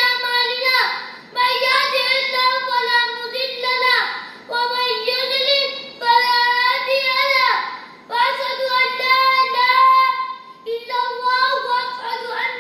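A young boy singing solo and unaccompanied, in held melodic phrases about two seconds long with short breaths between them.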